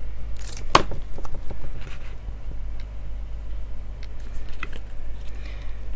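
Light handling of paper and cardstock pieces with a few soft clicks and taps, the sharpest one under a second in, over a steady low hum.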